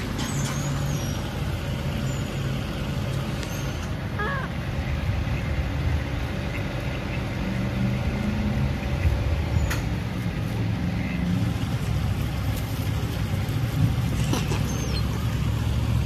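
Steady low rumble of road traffic, with a few faint short bird chirps.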